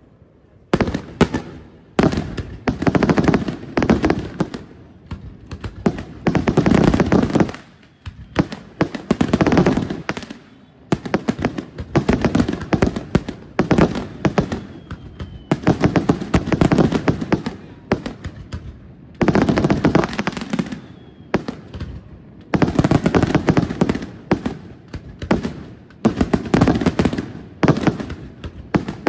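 Daytime aerial fireworks going off in rapid volleys of sharp bangs and crackling reports, in dense waves of a second or two broken by brief gaps.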